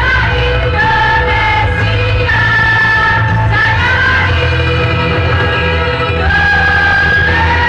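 A women's choir singing long held notes that change every second or so, over a steady bass-heavy accompaniment.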